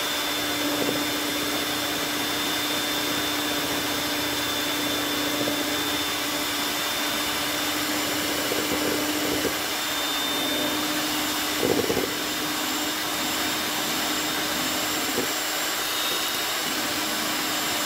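Electric hand mixer running steadily at one speed, its beaters whipping egg whites with the yolks added into a batter. A brief louder rattle comes about twelve seconds in.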